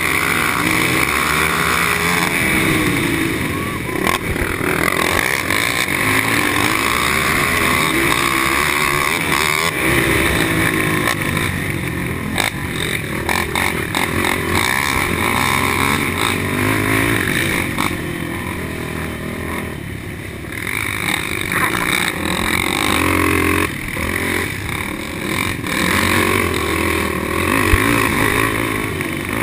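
Racing quad's engine run hard, heard from on board, its pitch climbing and dropping again and again as the rider works the throttle and gears, with other quads running close by.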